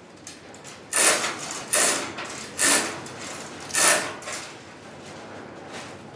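A steel gantry crane and the wooden flatbed hanging from it on chains, shifted under load, making four loud scraping, creaking strokes about a second apart, each about half a second long.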